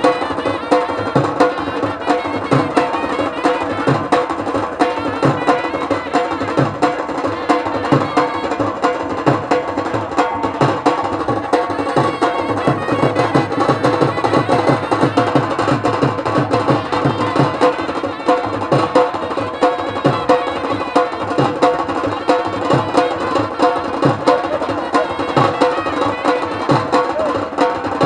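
Traditional Indian drum music with a fast, steady beat of sharp strikes, over a held melodic tone.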